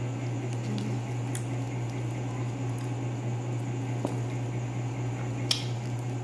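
Lansones fruit being peeled by hand, with soft squishy crackles of the skin and flesh and a few small clicks, the sharpest about five and a half seconds in. A steady low hum runs underneath.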